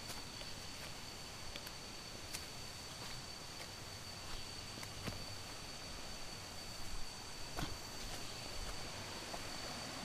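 Footsteps on a stony, leaf-littered forest path, with a few sharp knocks of stones underfoot. Under them runs a steady high-pitched insect drone.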